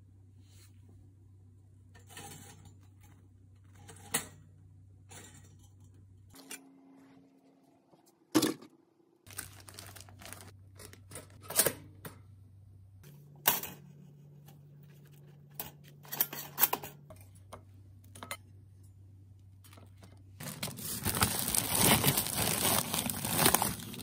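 Sharp clicks and clacks from a pop-up toaster as its lever is worked, then plastic bread bags crinkling loudly near the end as they are forced into a packed freezer.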